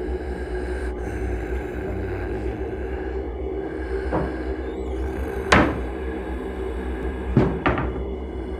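Kitchen wall-cupboard door handled, with a small knock about four seconds in and a louder knock about a second later. Near the end come two quick knocks as a glass bottle and tumbler are put down on the counter. A steady low hum and soft sustained music lie underneath.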